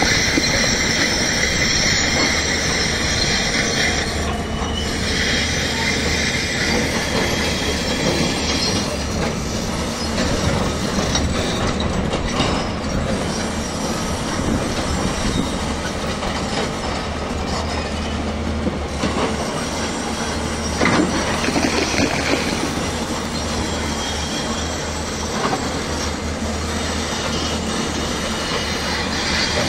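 Hyundai crawler excavator working rock: a steady diesel engine hum under the metal squeal and clank of its tracks and hydraulics. The high squealing is strongest in the first few seconds.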